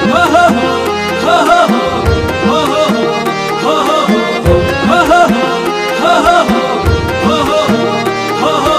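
Background music with a steady, repeating drum beat under a melody.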